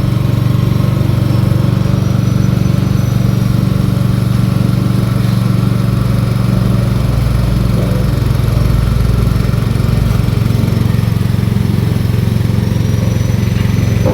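MAR-C A200 coconut milk screw press running steadily under load, a constant low machine drone with no change in speed.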